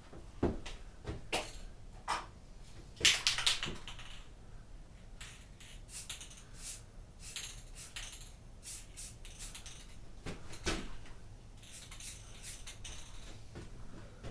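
Aerosol spray-paint can in use on bike forks: a string of short, sharp hissing and clicking sounds, denser about three seconds in.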